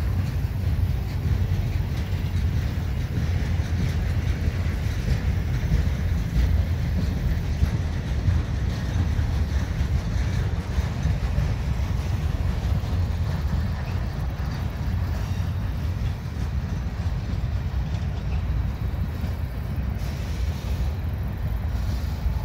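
A freight train's empty flatcars rolling past at speed, making a steady low rumble of steel wheels on the rails.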